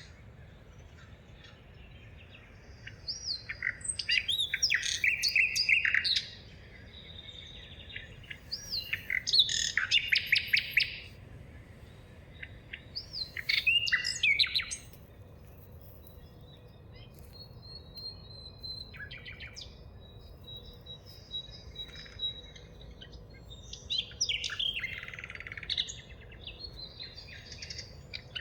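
Wild songbirds singing in a forest: loud bursts of quick chirping song phrases about every four seconds, each lasting one to two seconds, with fainter calls and a thin whistle between them in the second half.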